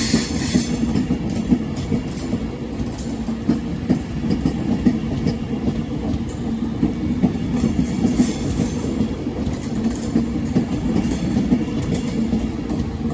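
Avanti West Coast Class 390 Pendolino electric train passing through the station, a steady rumble and hum with rapid clicks of wheels over the rail joints.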